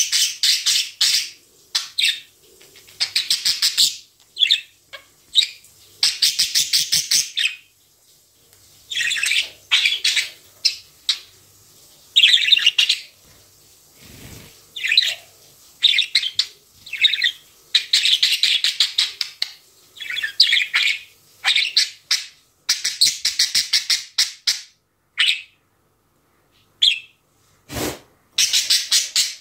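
Budgerigar chirping and warbling in bursts of fast, high chirps separated by short pauses. A single knock near the end.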